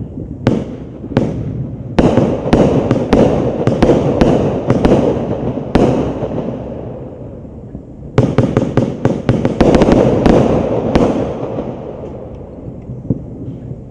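A 49-shot consumer firework cake firing, each shot a sharp bang with an echoing tail. About a dozen shots come spaced out over the first six seconds, then a quick volley of rapid shots from about eight to ten seconds in and a couple more, before the rumble dies away near the end.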